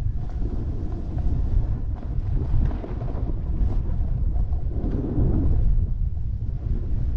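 Wind buffeting the camera microphone while moving down a snowy trail: a rough, uneven low rumble.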